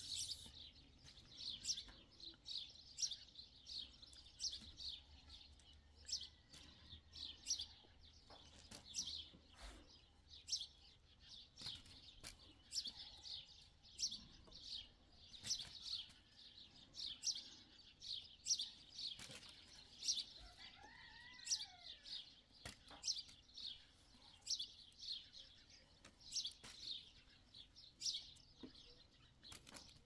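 Small birds chirping, short high chirps repeating several times a second. About two-thirds of the way through, a single lower call rises and falls.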